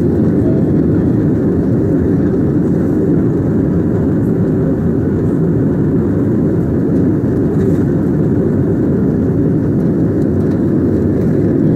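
Steady jet airliner noise heard from inside the cabin during take-off: engines and rushing air as an even, loud noise with no distinct events.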